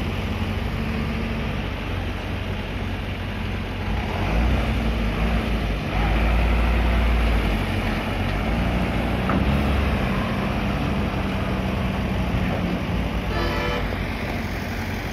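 Loaded trucks' engines running as they drive off over the ramp. One truck passing close is loudest midway, over a steady low engine drone. A short horn toot sounds near the end.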